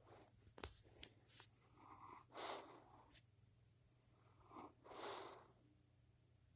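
A sleeper's breathing: soft noisy breaths, short snuffling snorts and small mouth clicks, with two longer breaths about two and a half and five seconds in.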